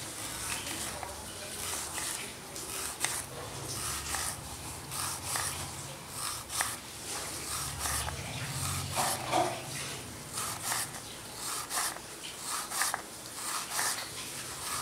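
Kitchen knife slicing a peeled raw banana on a wooden chopping board: repeated cuts, each ending with a light tap of the blade on the board.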